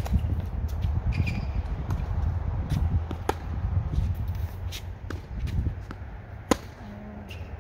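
Tennis balls struck with rackets in a rally: sharp pops about every three seconds, with softer ball bounces and footsteps between, over a low steady rumble.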